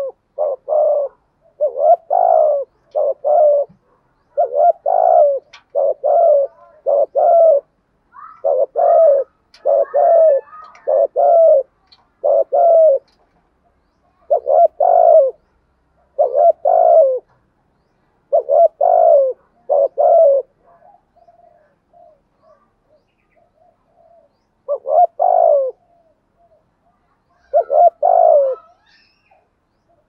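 Spotted dove cooing: loud, short, low coos that dip slightly in pitch, given in quick pairs and runs. There is a lull of faint, soft notes about two-thirds of the way through, then two more single coos near the end.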